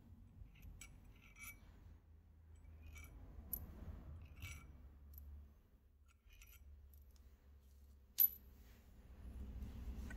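Small metallic clicks and clinks of the steel cover bolts on a Honda K-series VTC timing gear being pulled out and handled, with one sharper click about eight seconds in.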